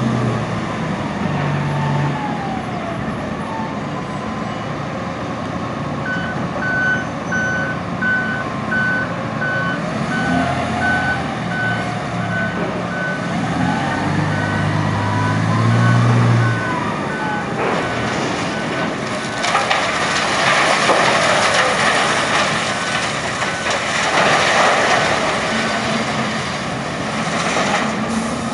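Komatsu HD785-5 rigid dump truck's V12 diesel running as it reverses, its reversing alarm beeping about twice a second, with rising and falling whines over the engine. In the second half a long, loud crashing rumble sets in as the rope shovel's bucket drops rock into the truck's bed.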